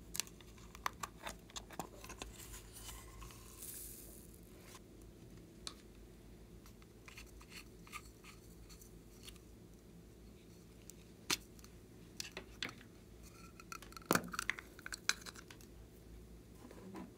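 Faint handling sounds of small plastic containers, including a cosmetic compact being opened: scattered clicks and taps, with a short rustling hiss a few seconds in. A few sharper clicks come in the second half.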